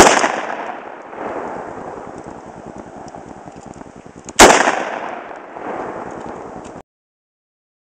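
Two shots from a short-barrelled AR-15 rifle with a 10.3-inch barrel, about four and a half seconds apart. Each is a sharp crack followed by a long echo that swells again about a second later as it comes back off the hills. The sound cuts off suddenly near the end.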